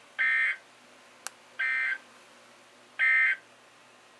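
Emergency Alert System end-of-message signal on NOAA Weather Radio: three short bursts of SAME digital data tones, about a second and a half apart. A single sharp click falls between the first and second bursts.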